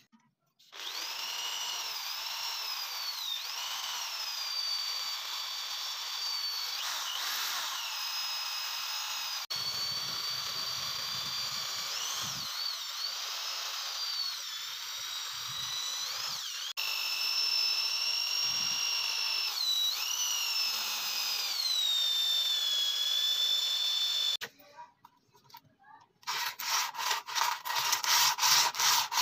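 Electric hand drill whining as it bores into a curled steel strip clamped in a bench vise, its pitch dipping and rising as the load changes. Near the end, after a short pause, a steel hatchet blade is rubbed back and forth on sandpaper in rapid, even strokes.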